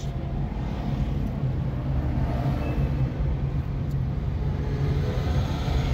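Car driving along a city street: steady engine hum and road rumble.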